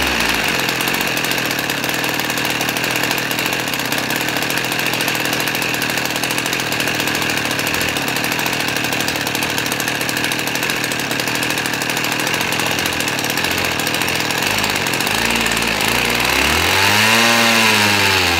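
Husqvarna 50 Rancher two-stroke chainsaw engine running steadily at high revs on choke, the revs swinging up and back down near the end. The owner takes the fact that it will only run with the choke on to mean it isn't getting enough fuel.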